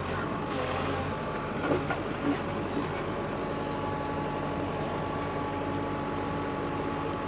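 Construction machine's engine running steadily, with a couple of brief knocks about two seconds in.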